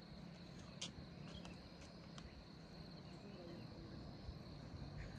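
Faint, steady high-pitched insect trill in the fields, with a single sharp click about a second in.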